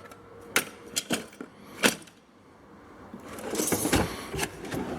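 A few sharp clicks and clinks of metal tools, then a metal toolbox drawer rolling along its ball-bearing slides, with a knock as it reaches the end of its travel.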